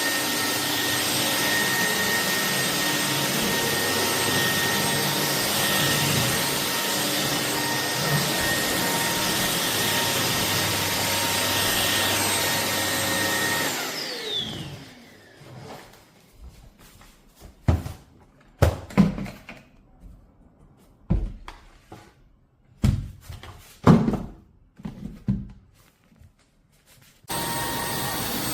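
Iirios 580 W cordless stick vacuum running steadily with a high whine. It is switched off about 14 seconds in and spins down with a falling whine. A series of irregular knocks and thumps follows, and the motor starts up again near the end.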